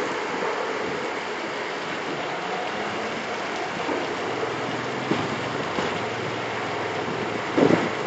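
Steady rushing noise of rain and runoff water on a street. Several louder buffets come near the end.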